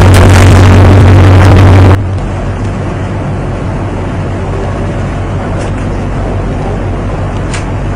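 Steady low engine rumble aboard a ship, loud for about two seconds, then cutting suddenly to a quieter steady rumble with a couple of faint clicks near the end.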